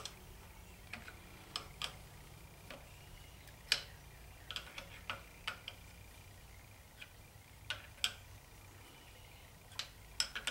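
Light, sharp metal clicks and taps at irregular spacing, about a dozen, from a wrench working a brass 45-degree oil pressure sender adapter into the engine, with a faint steady low hum underneath.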